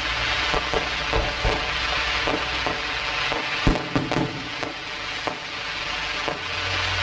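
Fireworks crackling and popping in a dense fizzing hiss, with sharp bangs scattered through it, the loudest a little under four seconds in.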